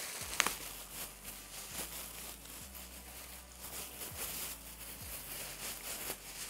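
Plastic wrapping rustling and crinkling in many small crackles as a cushion's bag is handled and opened, with one sharper click about half a second in.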